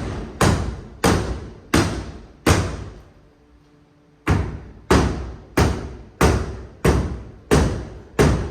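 Hammer striking nailed wooden wall boards over and over to knock them loose: four blows, a short pause, then seven more at about one and a half a second, each with a brief ringing decay. The boards are not coming free.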